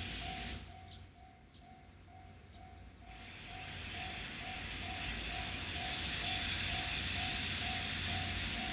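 A Japanese railway level-crossing alarm ringing its repeated electronic bell tone, about two strokes a second, warning that a train is coming. From about three seconds in, a rushing hiss grows steadily louder as the steam-locomotive train approaches.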